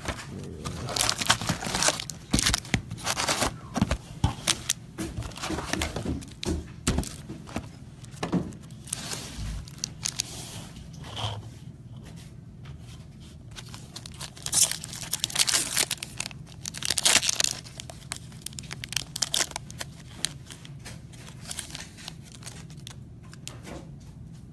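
Foil wrappers of 2016-17 SP Authentic hockey card packs being torn open and crinkled, with cards handled in between. The ripping and rustling comes in two busy stretches, one in the first few seconds and one about two-thirds of the way through.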